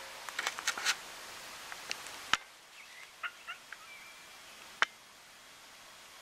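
A wild turkey gobbling once, a short rapid rattling call in the first second. Then a few short high chirps and a brief whistle, with sharp clicks before and after.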